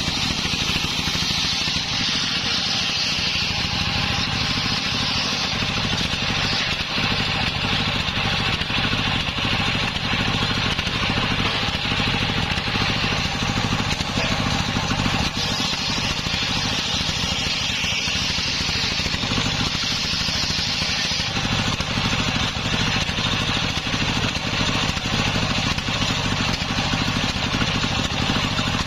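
Engine-driven table circular saw running steadily while its blade rips a green log lengthwise, a constant engine drone under the hiss of the cut, which swells and eases as the log is pushed through.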